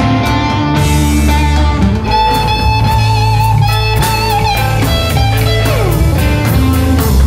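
Blues-rock band recording: an electric guitar lead holds wavering, bent notes over bass and drum kit, with a long falling slide about three-quarters of the way through.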